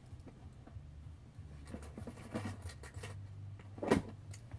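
Rustling and scratching of hair being handled while hair clips are fitted into it, with one sharp click about four seconds in and a low steady hum underneath.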